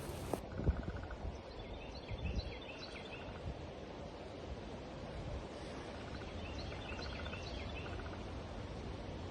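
Wind gusting across the microphone, with a few low buffeting thumps in the first couple of seconds. A small songbird sings a short chirping phrase twice, about two seconds in and again about seven seconds in.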